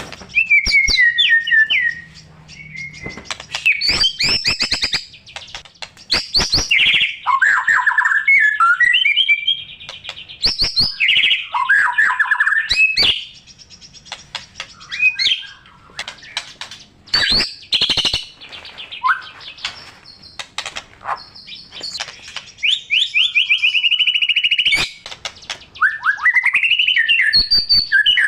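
White-rumped shama (murai batu) singing a loud, varied song: rich whistled phrases, fast trills and sharp clicking notes, strung together with short pauses and including mimicked phrases of other birds.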